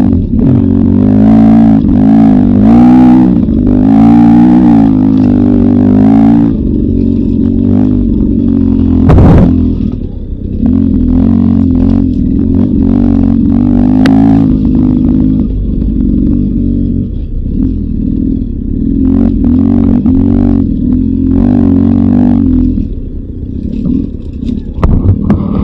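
Beta 300 RR two-stroke dirt bike engine running with the throttle worked on and off, its pitch rising and falling. There is a sharp knock about nine seconds in, and the engine settles lower and rougher near the end.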